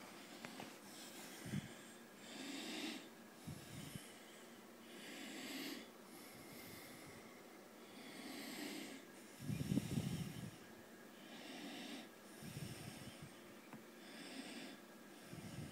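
Quiet breathing close to the microphone, a soft breath in or out every second or so, with a few low dull thumps from breath or handling on the microphone, the strongest about ten seconds in.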